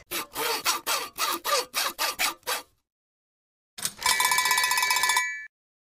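Cartoon sound effect of a hand saw cutting wood: about a dozen quick rasping strokes, roughly four a second. After a short pause comes a brief bright chiming jingle.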